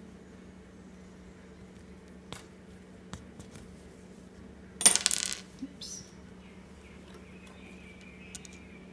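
A small metal object clinks down onto the hard worktop about five seconds in, ringing briefly like a dropped coin. A few faint clicks of handling come before it.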